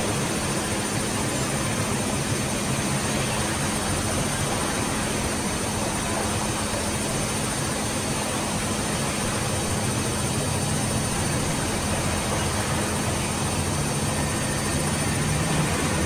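Electrolux EWF85761 front-loading washing machine running, its drum turning with water and laundry inside: a steady motor whir with water noise over a low hum.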